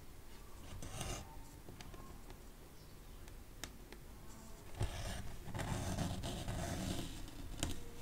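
Needle and cotton thread being pulled through 14-count cross-stitch fabric: soft scraping rubs of the thread about a second in and again in a longer stretch from about five to seven seconds in, with three sharp clicks of the needle against the fabric.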